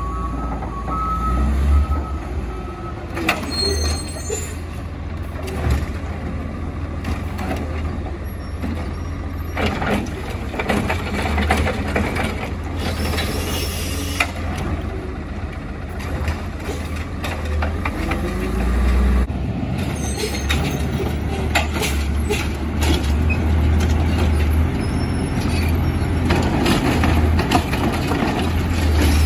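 Garbage truck's engine running low and steady, with a reversing beeper that stops about a second in, an air-brake hiss near the middle, and scattered knocks and clanks.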